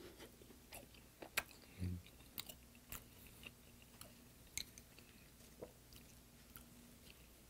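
Faint close-up mouth sounds of a man chewing a mouthful of braised sardine and potato: scattered soft smacks and clicks, with a short low hum about two seconds in.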